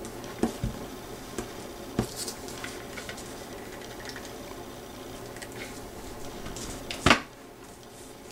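Handling noise from hot-gluing artificial flowers onto a small craft nest: scattered light clicks and taps, with one louder knock about seven seconds in, over a faint steady hum.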